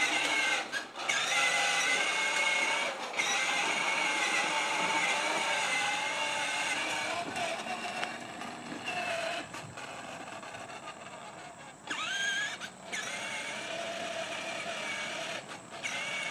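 Battery-powered kids' ride-on toy quad driving along, its electric motor and gearbox whining steadily, with a brief rising whine about three-quarters of the way through.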